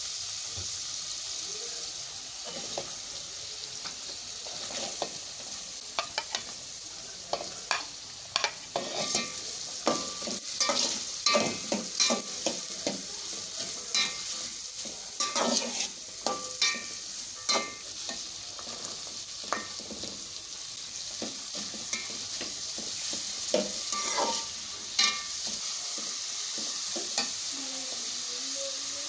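Food sizzling in hot oil in a pan while a spatula stirs it. The spatula scrapes and clinks against the pan many times, most busily through the middle, over a steady sizzle.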